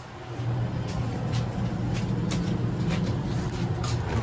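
KONE glass elevator's drive machinery starting up and running with a steady low hum, with scattered light clicks over it.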